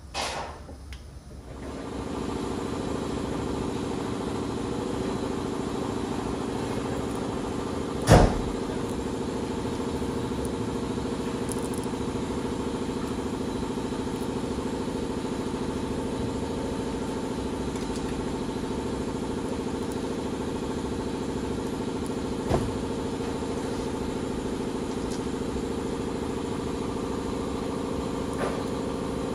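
An engine starts about a second in and then runs at a steady idle. A single sharp knock about 8 s in is the loudest sound, with a smaller one later.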